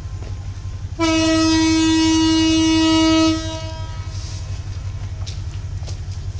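Horn of a CC 205 diesel locomotive sounding one long, steady blast of a little over two seconds, starting about a second in: signal 35, the driver's acknowledgement of the departure signal. Under it a steady low rumble.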